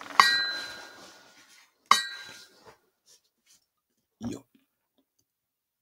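Two sharp clinks of a hard object, about a second and a half apart, each ringing briefly with a few clear tones, then a short dull knock near the end.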